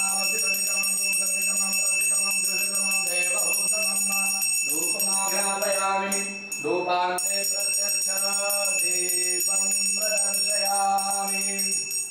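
Brass puja hand bell (ghanti) rung rapidly and continuously in the incense offering of a Shiva puja, a steady high ringing. A voice chants underneath in drawn-out phrases.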